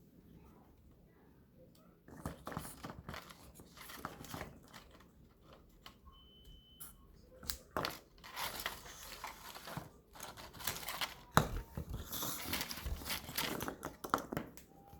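Plastic toy packaging being crinkled and torn open, in irregular rustling bursts with sharp crackles, starting about two seconds in.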